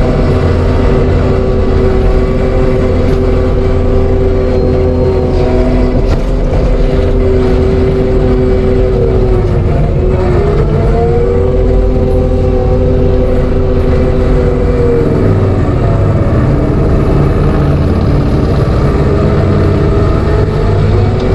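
ASV RT-120F compact track loader's diesel engine running at high revs while driving a TMC Cancela forestry mulcher. The engine pitch sags briefly about ten seconds in as it takes load, then recovers.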